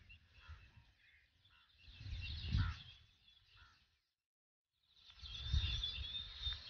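Outdoor ambience of scattered bird chirps over a low rumbling noise. It drops out into a second of silence a little after halfway, then returns with a steady high whine over low noise.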